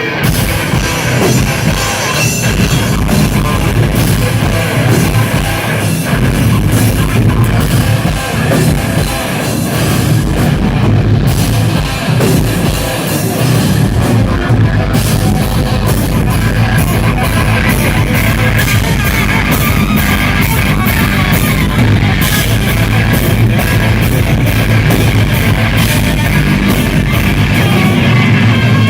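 Rock band playing loud and without a break, with heavy electric guitars over a drum kit keeping a steady beat.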